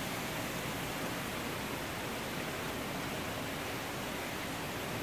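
Steady, even rushing hiss of the conservatory's background noise, with no distinct sounds standing out.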